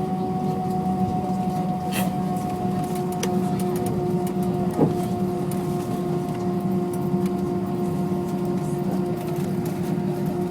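Steady cabin hum of an Airbus A320 with IAE V2500 engines, made up of engine and air-conditioning noise, with a few faint clicks and a short knock about five seconds in.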